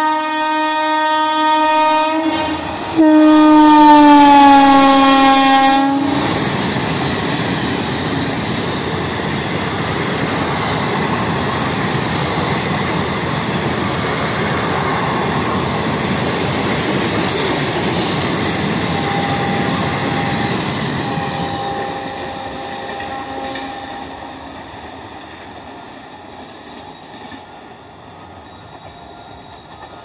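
WAP-4 electric locomotive's horn sounding in two long blasts, the second sliding down in pitch as the locomotive passes at speed. The express's coaches then rush past on the rails, the noise fading away as the train recedes.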